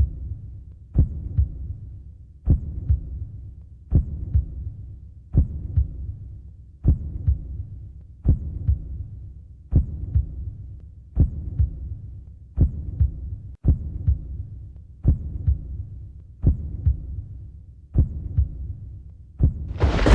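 Heartbeat sound effect: a slow, steady lub-dub of paired low thumps, about forty beats a minute. Right at the end a sudden loud rumbling noise breaks in.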